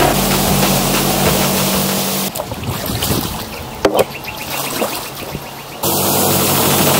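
Yamaha F6 four-stroke outboard running steadily, pushing an inflatable boat along with water rushing past the hull. About two seconds in it cuts to a much quieter stretch of water with one sharp knock, which fits an oar against the boat. The outboard and water rush come back just before the end.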